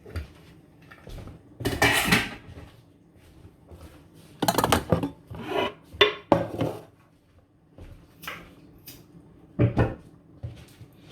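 Pots and metal kitchen utensils clattering and clanking in several irregular bursts, the loudest about two seconds in and again around five to seven seconds in.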